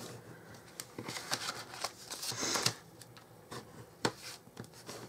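Bone folder burnishing creases in folded cardstock: irregular scraping strokes of the tool sliding over the paper, the longest about two and a half seconds in, with a sharp tick near the end.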